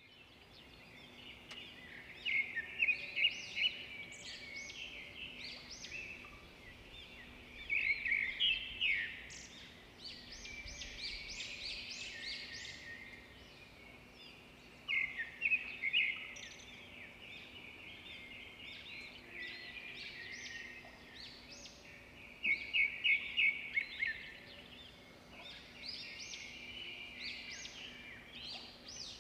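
Songbird chirping and twittering without a break, with loud bursts of rapid trilled notes every six or seven seconds. A faint steady hum lies underneath.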